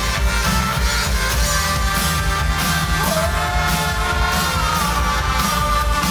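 Rock music with a sung vocal over a steady drum beat and guitars.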